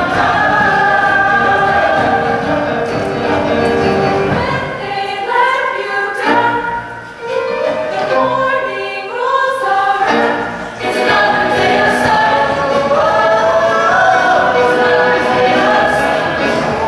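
Mixed-voice show choir singing in harmony. About five seconds in the sound thins to a few held notes that stack up one after another, and the full choir comes back in about eleven seconds in.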